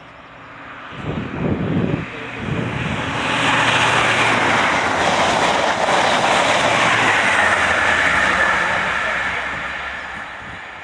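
A train passing at speed: a rushing noise that swells over a couple of seconds, holds loud for about five seconds, then fades away as it goes by.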